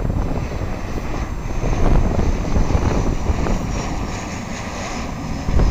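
Flybe Bombardier Dash 8 Q400 turboprop passing low overhead on final approach. Its twin PW150A turboprop engines and propellers make a loud, rough rumble, and a thin high whine strengthens in the second half.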